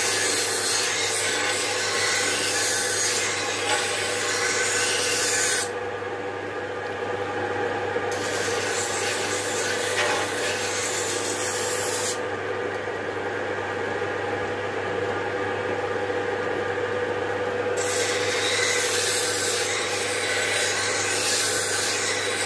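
A motor-driven lac-bonded corundum grinding wheel running with a steady hum, and a steel blade held against it grinding with a bright hiss. The grinding stops twice while the wheel keeps running, for about two seconds near six seconds in and for about six seconds from twelve seconds in.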